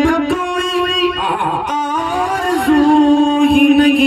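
A man singing a naat into a microphone, drawing out long held notes that slide between pitches, with a short breath about two seconds in.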